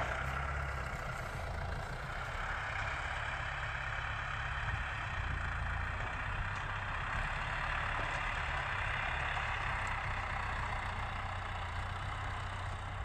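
Farm tractor engine running steadily, a low hum.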